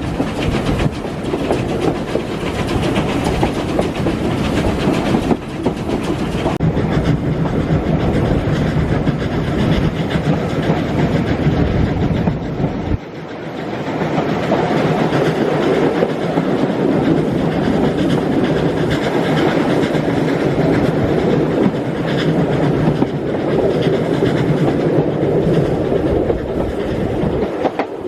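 A train running along the track, its wheels clattering over the rail joints over a steady rumble. About halfway through, the deep rumble drops away suddenly and the running noise carries on lighter.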